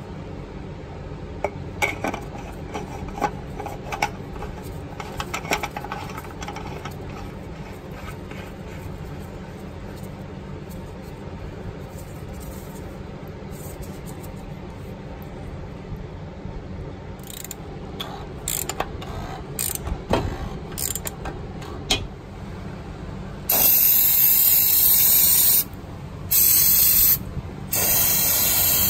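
An oil filter housing cap is threaded back into place by hand, with scattered light clicks and scrapes. Near the end, an aerosol can of brake/parts cleaner sprays in three loud hissing bursts with short breaks between them.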